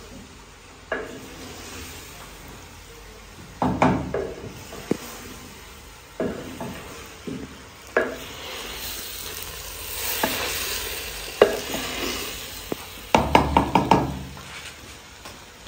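Ladle scraping and knocking against a clay cooking pot as potato and pumpkin curry is stirred, over the sizzle of the frying vegetables. The sizzle swells in the middle, and a quick run of knocks comes near the end.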